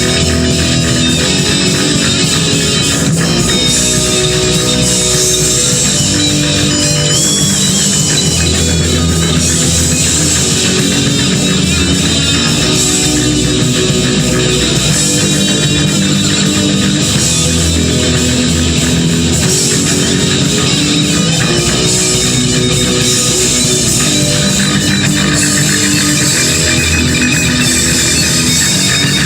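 Heavy metal band playing a loud instrumental passage with no vocals: distorted electric guitars over bass guitar and drum kit.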